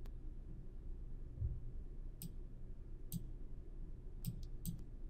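Computer mouse button clicking: about six short, scattered clicks, three of them in quick succession near the end, over a faint low hum.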